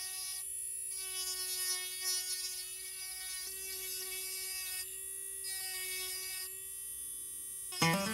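Micromotor rotary tool with a small flat-sided carving bit running at speed against hard figured maple: a steady high whine that thins out briefly a few times as the bit works the wood. Background music comes in just before the end.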